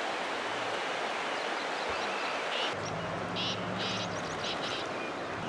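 Outdoor field ambience: a steady rushing noise with small birds chirping faintly. About two and a half seconds in the sound changes at a cut: a low steady hum comes in and the bird chirps grow louder, in quick clusters.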